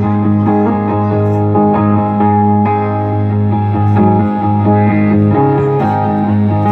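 Amplified hollow-body electric guitar played live, picking a run of notes over a low note that keeps ringing underneath.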